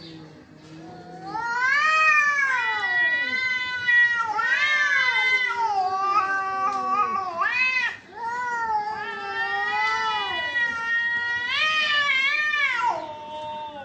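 Two domestic cats, a black-and-white and an orange-and-white, yowling at each other in an aggressive standoff: long drawn-out yowls that rise and fall in pitch and overlap. The yowls break off briefly about eight seconds in, then resume until near the end.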